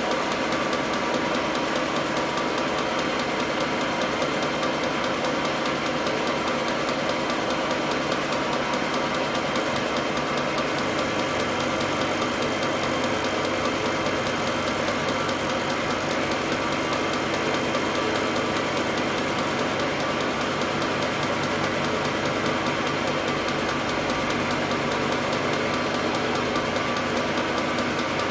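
Milling machine running with its end mill cutting a metal part: a steady machining noise with a rapid fine rattle from the cutter. A low hum joins about ten seconds in.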